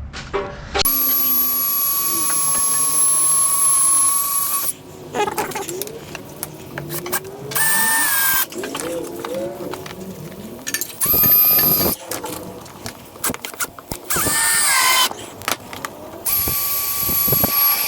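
Harbor Freight cordless drill driving screws for a door reinforcement kit, in five separate runs of steady whine lasting one to four seconds each. The longest run comes first. Shorter clatter and handling noises fall between the runs.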